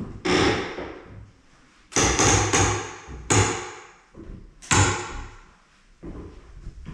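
About six sharp bangs at uneven spacing, three of them in quick succession about two seconds in. Each rings out and fades over roughly a second.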